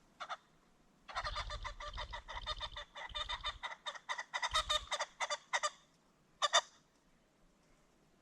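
Ring-necked pheasant calling: a short harsh note, then a rapid run of cackling notes, about five or six a second for some four and a half seconds, and one last sharp double note near the end.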